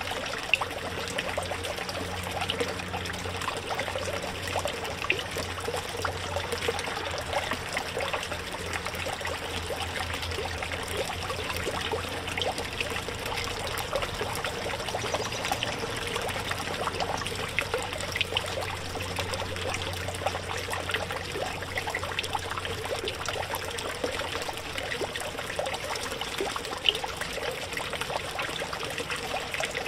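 Water trickling and splashing steadily from a small backyard pond fountain, with a low hum underneath that fades out about three-quarters of the way through.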